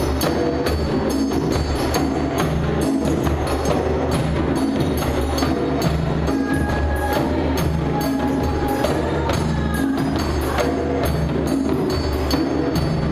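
Percussion-driven music: a quick, steady beat of sharp strikes over low sustained bass notes.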